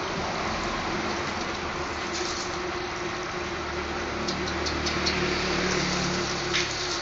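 Water from a hose running and splashing on a dog's coat and the floor as it is washed, over a steady low hum, with a few small splashes and drips about four to six seconds in.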